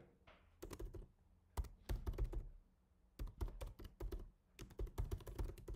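Typing on a computer keyboard: quick runs of key clicks in about four short spurts, with brief pauses between them.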